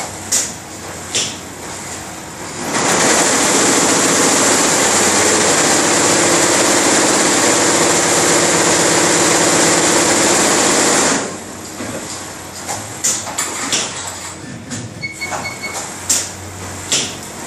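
Multi-head industrial embroidery machine running. Scattered clicks and knocks last for about the first two and a half seconds, then give way to about eight seconds of loud, continuous fast stitching. After that it goes back to intermittent clicking and knocking.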